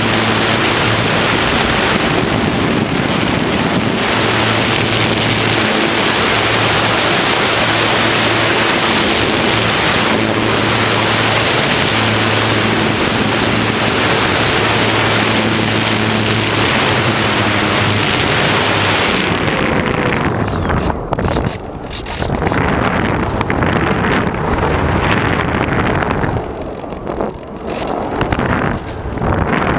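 Wind blowing hard across the microphone: a loud, steady rush that thins and dips out a few times in the last third. A low steady hum comes and goes under it in the first two-thirds.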